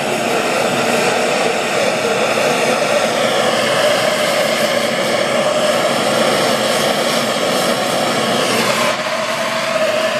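Hand-held gas torch flame burning with a steady hiss while it heats an aluminium square-tubing joint for low-temperature brazing with a rod. About nine seconds in, the sound of the flame changes slightly.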